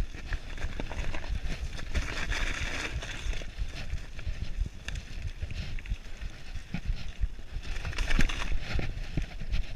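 Mountain bike rolling along a leaf-covered dirt singletrack: the tyres crunch through dry fallen leaves while the bike and its handlebar-mounted camera rattle and knock over bumps in the trail.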